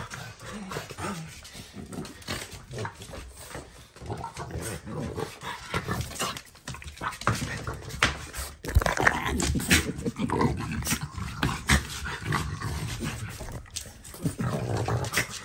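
Two French bulldogs snorting in rapid, irregular bursts as they tussle over a strip of painter's tape, sounding like little pigs.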